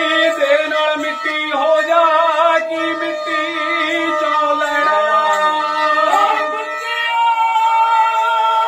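Men singing a Punjabi folk song in a wavering, ornamented voice over a stringed instrument, with one long high note held near the end.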